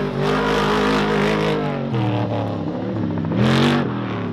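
Unlimited-class trophy truck engine running at high revs, rising in a sharp rev about three and a half seconds in.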